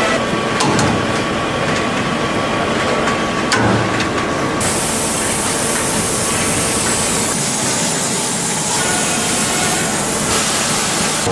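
Steady, loud rushing noise from a running machine, turning hissier about halfway through.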